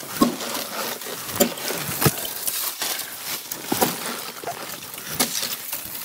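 A small axe chopping the dry dead limbs off a felled conifer trunk, striking from the underside: about five sharp chops at irregular intervals of a second or so, with dry twigs crackling and snapping in between.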